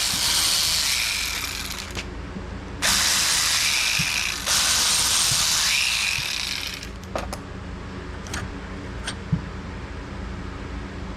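A power wrench runs in two long bursts of about four seconds each, a hiss with a shifting whir. A few light metallic clicks follow.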